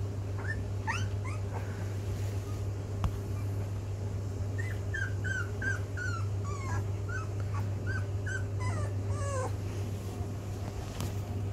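Rhodesian Ridgeback puppies, about 16 days old, whimpering in a string of short, high, squeaky whines that come about two a second in the middle of the stretch, over a steady low hum.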